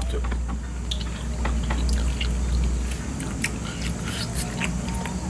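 A person chewing and biting spicy chicken feet, with many short, irregular wet smacks and clicks.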